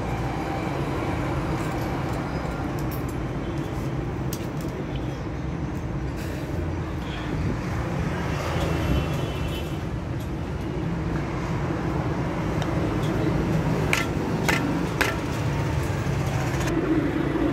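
Steady noise of road traffic running, with a few sharp clicks about 14 to 15 seconds in as metal engine parts are handled.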